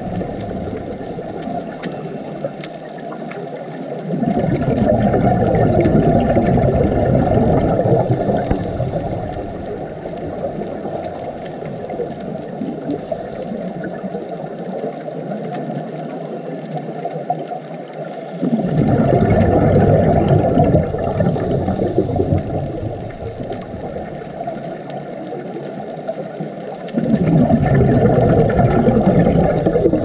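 Underwater sound from a diving camera: a steady low water rumble, swelling louder three times, at about 4, 18 and 27 seconds in, with the bubbling rush of a scuba diver exhaling through a regulator.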